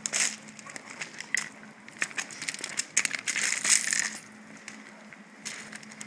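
Dog playing at a spring pole on gravel: irregular crunching and scuffing of paws on loose stones, with rattles from the spring-pole toy, busiest around two to four seconds in.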